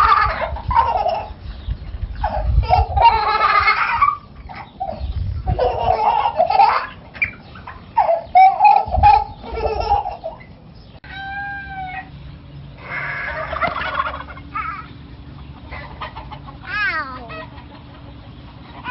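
Chickens squawking and clucking in a run of loud calls, followed later by a couple of pitched cries, one falling in pitch near the end.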